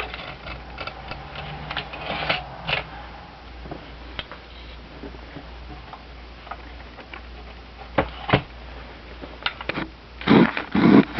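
Olivetti Lettera 32 manual typewriter being handled while it is set up: scattered sharp mechanical clicks from the carriage and margin stops, two crisp clicks about eight seconds in, and a cluster of louder knocks near the end.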